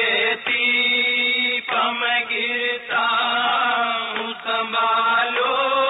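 A voice chanting a noha, a Shia Muharram mourning lament, in long held notes, the phrases broken by short pauses every second or so.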